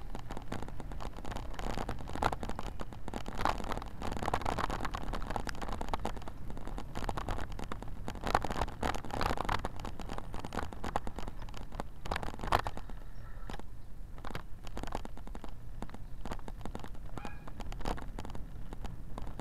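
Dense clicking and rattling from a bike-mounted camera being jostled as the bike rolls over a rough concrete street, with a few louder knocks.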